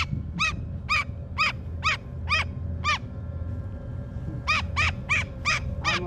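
Umbrella cockatoo giving short, sharp calls about two a second, one run at the start and another starting again after a pause of over a second. The handlers read her as very uncomfortable. A steady low hum runs underneath.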